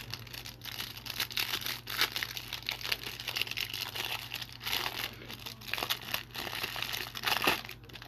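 Thin clear plastic wrapper on a trading-card hanger pack being torn open and peeled off the stack of cards, crinkling and crackling irregularly throughout.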